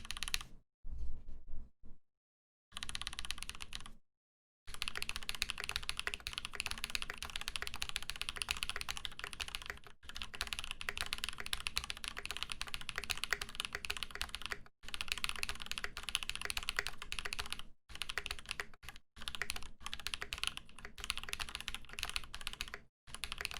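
Typing quickly on a freshly built Space65 CV mechanical keyboard as a sound test: a dense run of key clacks broken by several short pauses.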